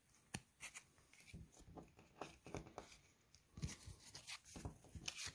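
Trading cards being handled and sorted on a wooden table: a string of faint, irregular clicks and taps of card stock against card and tabletop, busier near the end.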